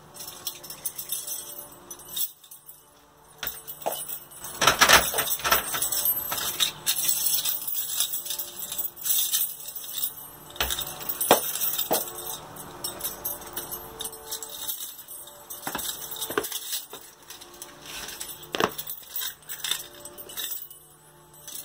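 A large bunch of metal keys jangling and clinking, in irregular bursts, as they are fumbled at a door lock; the busiest jingling comes about five seconds in.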